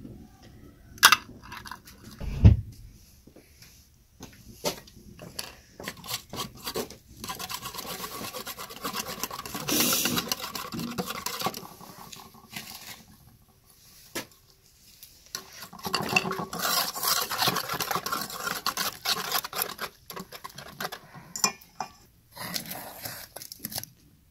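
Wire whisk beating eggs in a stainless steel bowl: rapid metal tapping and scraping against the bowl, in two long spells. A couple of sharp knocks come in the first few seconds.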